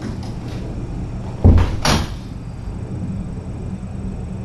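A single loud thump about a second and a half in, followed straight away by a brief sharper rattle, over a steady low electrical hum.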